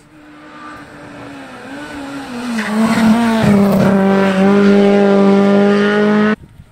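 Hill-climb race car engine approaching at high revs and growing louder. Its note drops in pitch about two and a half seconds in, then holds steady and loud through the bend before cutting off abruptly near the end.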